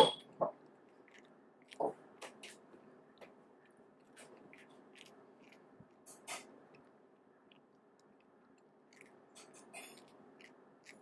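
Cat chewing small snack pieces in irregular sharp crunches, loudest in the first two seconds and again around six seconds in.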